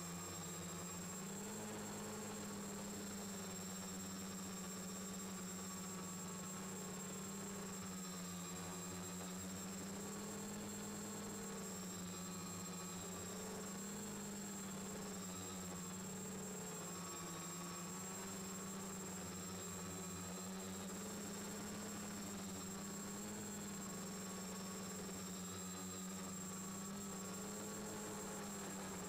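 Quadcopter's four Turnigy D2830 1000KV brushless motors and propellers humming in flight, the pitch wavering slowly up and down as the motor speeds are adjusted, with a steady high whine above it. Heard from a camera mounted on the drone's frame.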